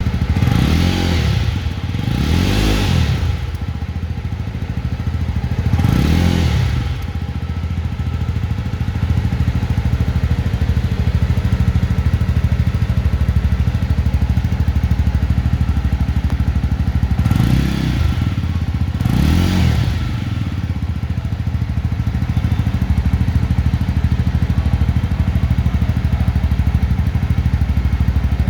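Single-cylinder motorcycle engine idling with quick throttle blips: three revs in the first six seconds and two more a little past the middle, each rising and falling back to idle, then a steady idle to the end.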